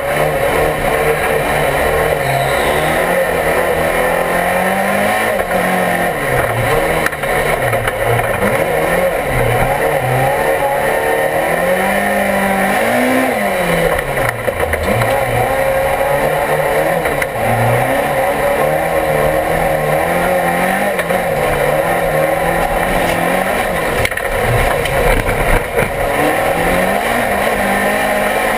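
Rallycross car's engine at full race effort, heard from inside the cockpit: the revs climb and drop over and over as the driver works through the gears and corners.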